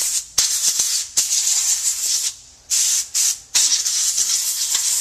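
Canned compressed air spraying through its straw nozzle into a laptop's open base to blow out dust, in a series of about five loud hissing bursts with short pauses between them. The longest burst, near the end, lasts more than a second.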